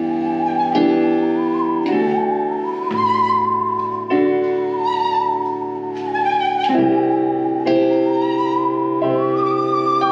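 Musical saw bowed with a violin bow, playing a slow melody in a singing tone that slides up and down with a constant waver, over sustained keyboard chords.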